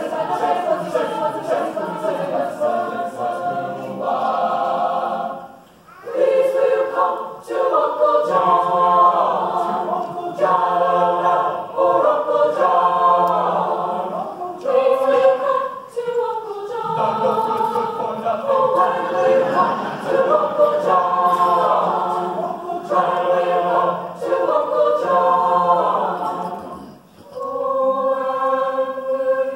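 Choir singing a cappella in long held phrases, with a few brief breaks between phrases.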